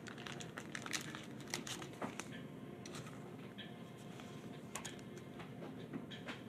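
Trading cards shuffled and slid against each other by gloved hands: a run of faint clicks and soft crinkles, thickest at the start, with a few more scattered later.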